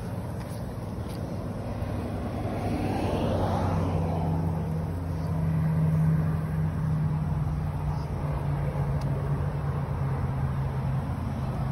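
Road traffic: a vehicle going by, then a steady low engine hum from about four seconds in.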